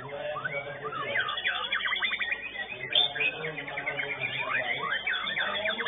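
White-rumped shama (murai batu) singing a fast, varied song of whistled sweeps and rapid trills, with voices murmuring in the background.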